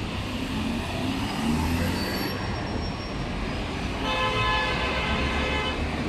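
Road traffic at a city intersection: vehicle engines and tyres running steadily. About two-thirds of the way in, a vehicle horn sounds and is held for nearly two seconds.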